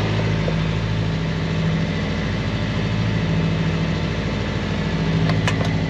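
A sailboat's engine running steadily under way, a constant low drone heard inside the cabin.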